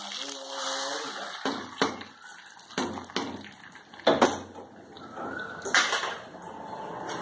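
Hot tempering of oil, dried red chillies and curry leaves tipped from a small iron kadai into a steel pot of sambhar, with a short hiss as it hits. This is followed by several sharp metal clanks of the pan and pot on the stove, the loudest about four seconds in.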